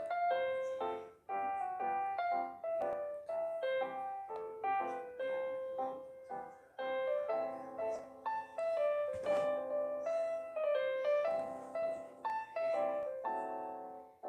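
Background music: a piano melody of quick, separate notes that each strike and fade.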